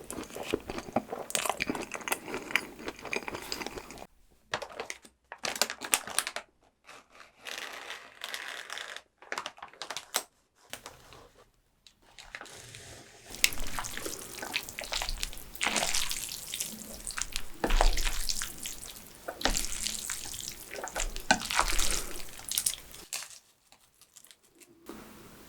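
Close-miked eating sounds: wet chewing, smacking and slurping of spicy fire noodles and steak, in short snippets cut together with sudden brief gaps.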